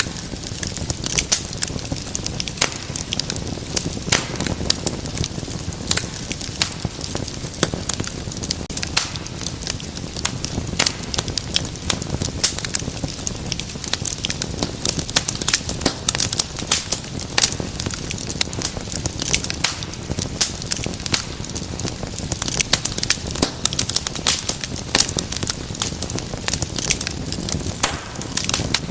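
Wood fire burning, with a dense, irregular stream of sharp crackles and pops over a low, steady rumble of flame.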